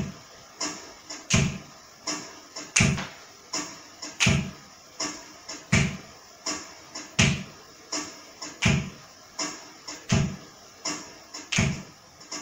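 A slow, steady drum beat with no melody: a deep thump about every one and a half seconds, with lighter hits in between.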